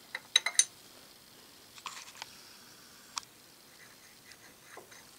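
Light metallic clicks and taps of a steel key-stock bar being slid and seated in a freshly milled slot in an aluminum guide block: a quick cluster of small ringing clinks in the first second, then a few faint, scattered taps.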